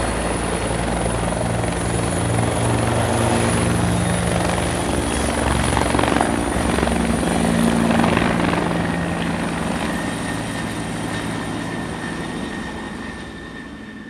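Helicopter taking off: rotor noise with a steady high turbine whine on top. It is loudest about two-thirds of the way through, then fades steadily over the last several seconds as the aircraft departs.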